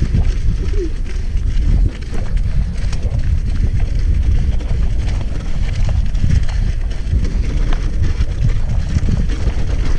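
Wind buffeting an action camera's microphone as a hardtail mountain bike rolls fast down a muddy dirt track, with steady low tyre rumble and scattered clicks and rattles from the bike.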